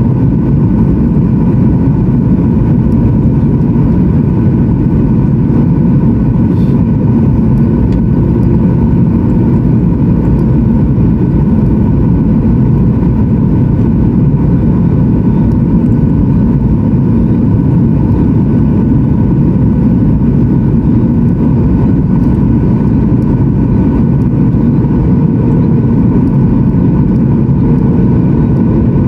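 Steady cabin noise of a Boeing 737-900ER in flight, heard from inside the cabin: a constant low rush of airflow and CFM56-7 jet engine noise, with steady whining tones over it.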